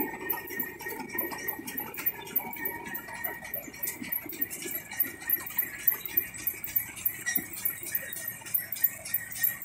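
Light metallic clicking and rattling, several irregular taps a second, from the combine carrying the John Deere 915 platform header.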